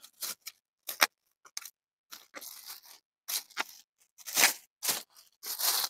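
Banana leaves and a plastic bag rustling and crinkling in irregular bursts as the leaves are pressed and tucked down over a bag of cut culantro, louder a little past halfway and again near the end.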